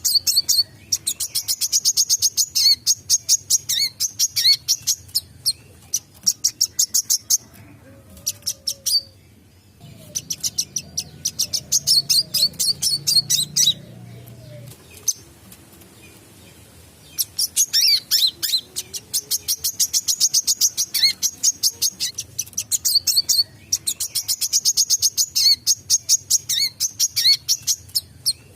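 Wiceh sunbird (kolibri kelapa) singing its fast, unbroken chattering song: long runs of rapid high-pitched chirps, several a second, broken by a few short pauses.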